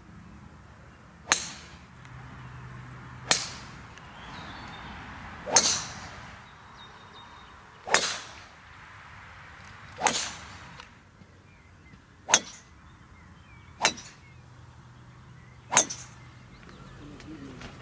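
Golf club heads striking golf balls off the tee: eight sharp cracks, about one every two seconds, each dying away quickly.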